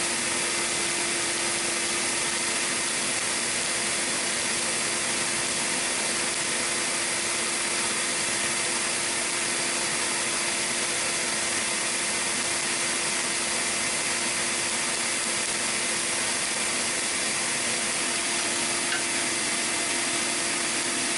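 Electric air blower running steadily, forcing air through a hose into a wood-fired tire-rim forge: an even rush of air with a steady motor hum.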